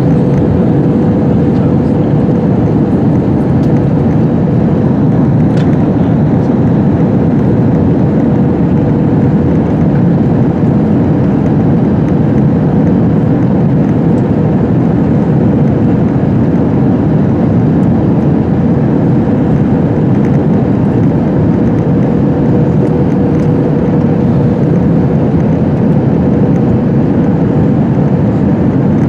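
Cabin noise of an Airbus A321 on final approach: a loud, steady roar of the jet engines and the air rushing past the fuselage and the extended wing, with a steady hum running through it.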